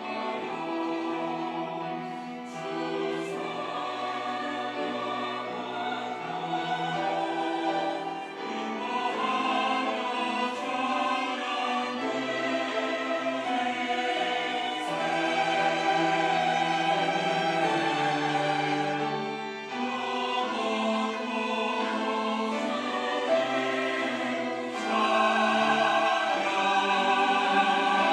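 Church choir singing a Sunday anthem, growing louder near the end.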